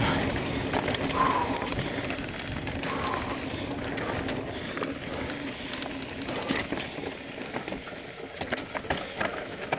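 Mountain bike running fast down a rough trail: a steady freehub ratchet buzz while coasting, with tyre and trail noise and sharp clicks and knocks of the bike over rough ground, thicker in the second half. A faint high chirping comes in near the end.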